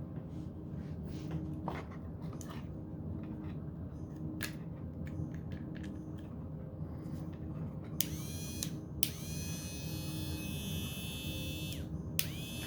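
Rotary tool: a few handling clicks over a low hum, then about eight seconds in the motor is switched on and its high whine rises quickly to a steady pitch. It cuts out briefly near the end and spins up again.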